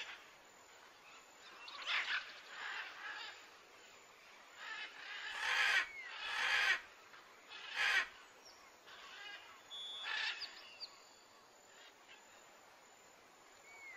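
Faint bird chirps and calls in short bursts a second or two apart.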